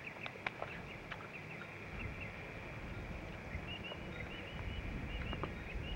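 Birds calling in short, quickly repeated chirps, over a low rumbling noise that grows about two seconds in.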